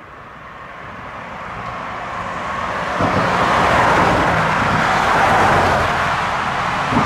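Road traffic crossing the steel bridge: a motor vehicle's engine and tyre noise grow louder as it approaches and passes close, then stay loud from about three seconds in.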